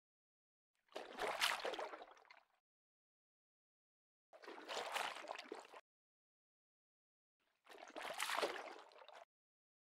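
Stock water splash sound effect, heard three times: each splash lasts about a second and a half, starting abruptly and dying away, with dead silence between them.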